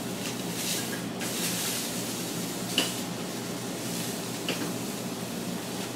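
Rockfish fillet searing in a hot non-stick pan, just turned onto its other side: a steady sizzle over a low steady hum, with a light click a little before halfway and another about three-quarters through.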